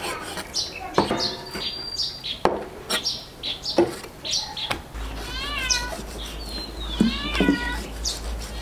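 Meat cleaver chopping pig's trotters on a thick wooden chopping block: a handful of sharp chops at uneven intervals. In the second half there are three short, high, wavering calls from an animal, and bird chirps are heard in the background.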